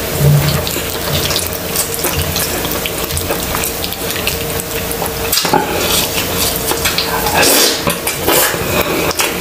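Close-miked eating sounds: wet chewing and lip smacking with many small clicks and crackles, as fingers pick at baked tilapia and rice and tear open a battered chile relleno. The crackling is busiest in the second half. A faint steady hum runs underneath.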